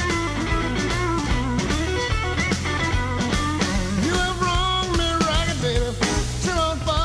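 Rock music with electric guitar over a steady beat; a lead melody comes in about four seconds in.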